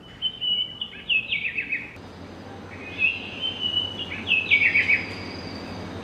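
Birdsong alarm sound from a sunrise alarm clock: a bird sings two phrases of chirps and downward-sliding trills over a soft outdoor background.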